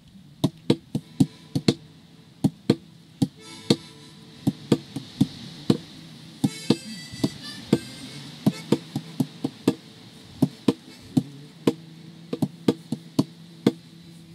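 Percussion in live theatre music: sharp knocks in an uneven beat, about two to three a second, over a low steady drone, with a brief high wavering tone about six to seven seconds in.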